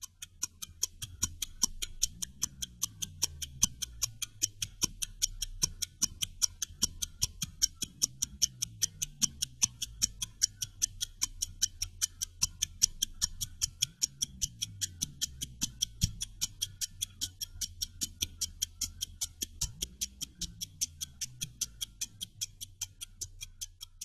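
Fast, even clock-like ticking over a low droning music bed that swells and falls in pitch about every six seconds.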